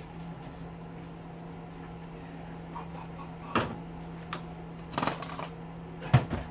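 A few short knocks and clatters of hedge trimmer parts being handled during disassembly, over a steady low hum.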